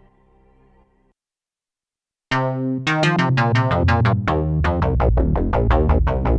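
ASM Hydrasynth digital synthesizer: a soft sustained pad fades out within the first second. After a short silence, a new preset starts about two seconds in, playing a fast run of short plucked notes over a heavy bass at about four notes a second.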